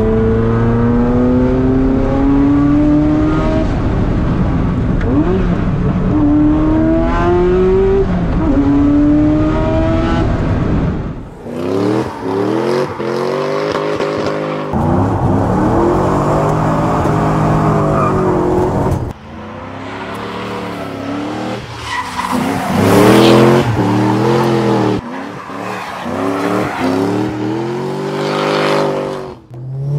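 Sports-car engines at full song. First a Ferrari accelerates through the gears, its pitch climbing and dropping back at each upshift. After about 11 seconds a drift car takes over, revving up and down over and over as the tyres squeal.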